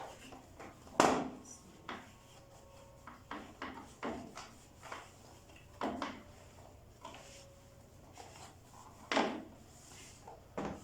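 Irregular knocks and rubbing from a barrel-type canister vacuum cleaner's housing being handled and wiped out with a cloth. The sharpest knock comes about a second in, another near the end.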